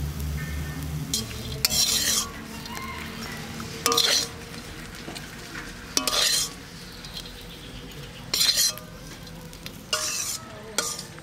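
Metal spatula scraping fried small shrimp across a metal wok, in about five short scrapes roughly two seconds apart, over a light sizzle from the pan.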